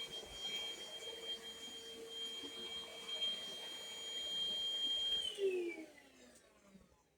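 Best Life Home cordless bagless upright vacuum cleaner running with a steady whine, then switched off about five seconds in, its motor winding down in pitch and fading away.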